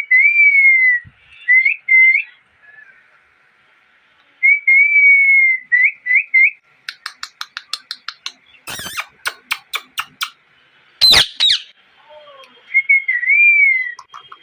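Ring-necked parakeet whistling in long gliding notes with quick upturned chirps. About seven seconds in it breaks into a fast run of clicking chatter, followed by a loud harsh squawk, then whistles again near the end.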